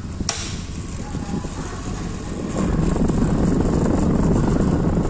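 A push-button switch on a Panasonic F-EP404 stand fan clicks once, then the fan runs with a steady rush of air. About two and a half seconds in the sound grows much louder and rumbles as the microphone comes into the blast from the blades.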